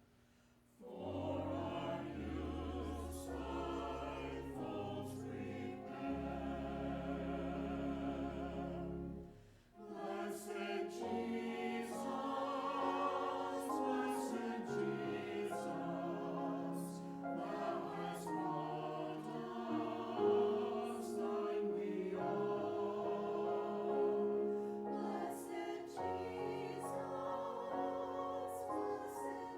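Church choir singing with wavering held notes over sustained low accompaniment; the music breaks off briefly just after the start and again about nine seconds in.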